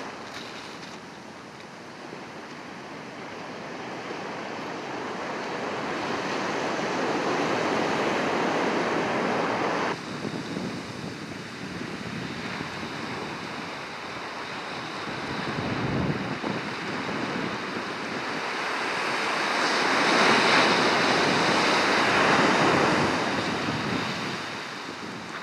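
Surf washing onto the beach, its rush swelling loud twice, with wind on the microphone.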